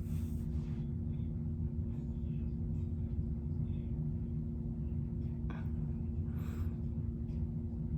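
A steady low hum with a couple of steady tones. A few faint, brief rustles come near the end.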